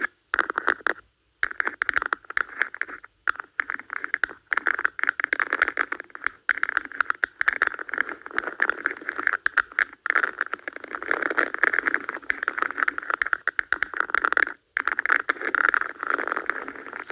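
Cups being tapped and scratched for ASMR: a continuous stream of quick crisp clicks and scrapes, broken by a few brief pauses.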